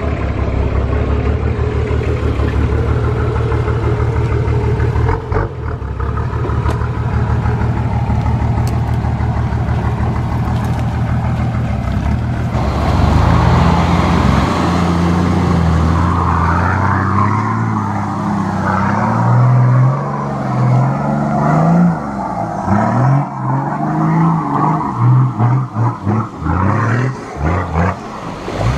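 Four-wheel drive's engine running steadily, then from about halfway through revving up and down again and again as it is worked through the terrain.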